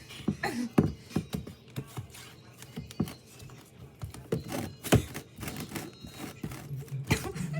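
Irregular clicks and taps of a utensil knocking against a baking pan as brownie batter is spread into its corners, with the sharpest knocks about a second in, at three seconds, near five seconds and near seven seconds.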